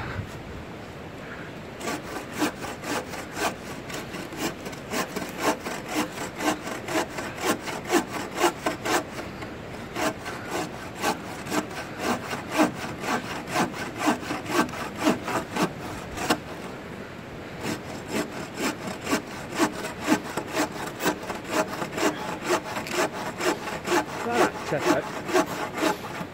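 Small bow saw cutting through a log by hand, in steady back-and-forth strokes about two a second, with a short pause partway through before the sawing picks up again.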